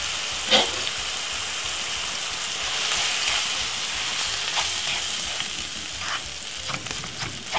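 Beaten egg and diced peppers sizzling in hot oil in a non-stick frying pan, with a spatula scraping and tapping against the pan as the egg is stirred. There is a sharp tap about half a second in, and several more taps and scrapes near the end.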